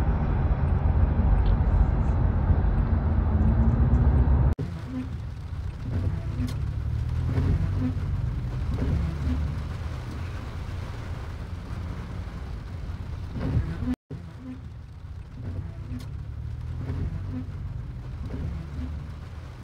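Car and traffic road noise: a loud low rumble that cuts off about four seconds in. A quieter low rumble follows, with a soft tone repeating about twice a second.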